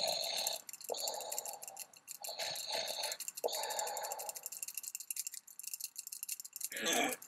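A cartoon cat snoring, voiced as slow, breathy snores: four in the first four and a half seconds, then a pause and one short breath near the end as it wakes. A fast light ticking runs underneath.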